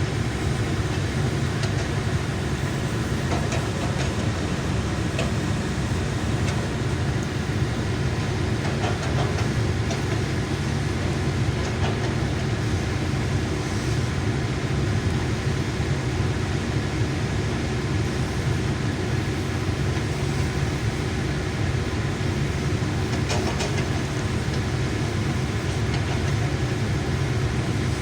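Hydraulic excavator's diesel engine running steadily, a low continuous drone, with a few faint knocks.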